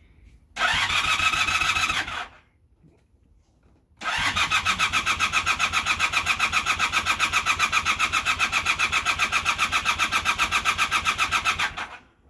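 Honda Super Dream motorcycle's electric starter cranking the engine without it catching: a short burst of cranking, a pause, then a long spell of steady rhythmic turning-over at about six beats a second that stops abruptly. The engine won't start.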